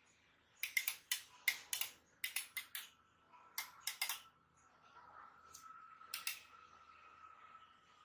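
Buttons on a King Kong 1024 DMX lighting console being pressed: a quick run of sharp plastic clicks, about a dozen in the first four seconds, then a few more about six seconds in.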